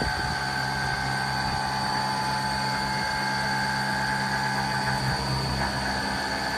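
CNC router spindle running steadily while milling aluminium, a constant high whine over a low machine hum.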